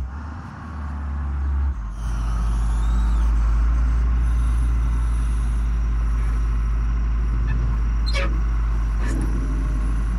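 Diesel engine of a Case 621C wheel loader running steadily as it sets a car on a trailer, louder from about two seconds in. Two short sharp noises come about a second apart near the end, as the forks pull away from the car.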